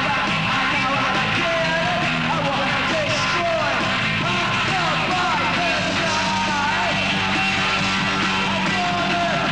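Loud punk rock music with yelling voices over it.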